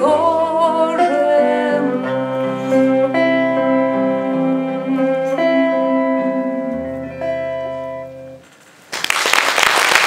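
A woman singing a bard song to her own acoustic guitar, the song closing on long held notes that fade out about eight seconds in. About a second later the audience breaks into applause.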